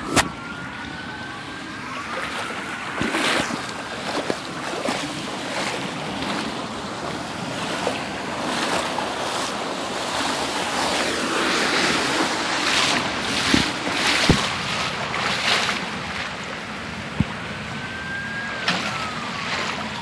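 Flash-flood water rushing and splashing through a street, with frequent sharp splashes. A faint wailing tone glides up and down near the start and again near the end.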